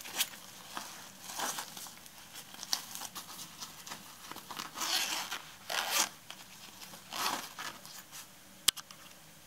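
Hand rustling and brushing over the nylon fabric and mesh pockets of an open toiletry bag, in a series of short swishes, with one sharp click near the end.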